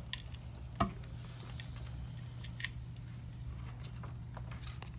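Quiet room with a steady low hum. Over it come a few faint ticks and rustles of pencils and paper as children draw lines in their journals, and one short, louder knock about a second in.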